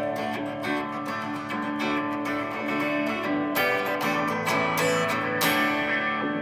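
Electric guitar strumming chords in an instrumental passage of a song, with no singing.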